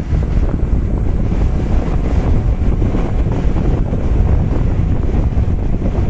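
Waterfall rushing, mixed with wind buffeting the microphone: a dense, steady low rumble with no distinct events.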